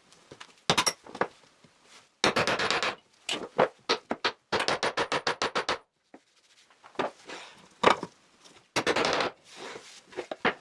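Runs of quick, sharp taps or clicks, about eight a second, coming in several short bursts with pauses between them.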